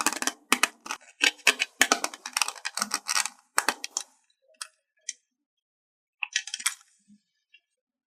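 Plastic toy picnic-set pieces and packaging being handled: a dense run of crinkles and clicks for about four seconds, then a few scattered clicks and a short burst of crinkling a little past six seconds.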